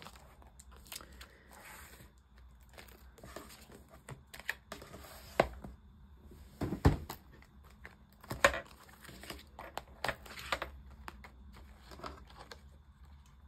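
Clear plastic binder pouches and cash envelopes crinkling and rustling as they are handled. Several sharp clicks and knocks come in between, the loudest about five, seven, eight and a half and ten and a half seconds in, as the ringed binder is set down and opened.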